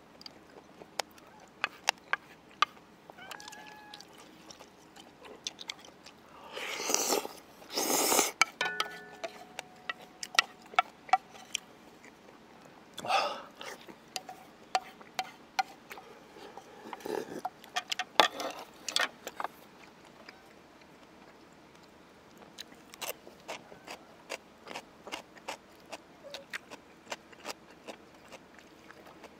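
Close-miked eating of noodle soup and dumplings: wet chewing and mouth clicks throughout, with loud slurps about 7 and 8 seconds in and again around 13 seconds.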